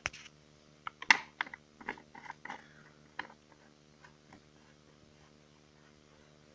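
A quick run of sharp plastic clicks and knocks from the top air-filter cover of a Ruris 367 chainsaw being handled and fitted back in place, loudest about a second in. The clicks stop after about three and a half seconds.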